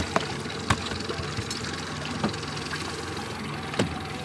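Boat motor running steadily at low trolling speed, with a few sharp knocks and rubbing from the camera being handled.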